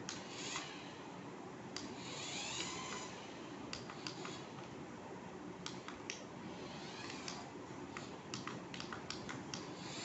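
Toy remote-control car's small electric drive motor whirring faintly in short bursts that rise and fall as it is driven, with scattered light clicks.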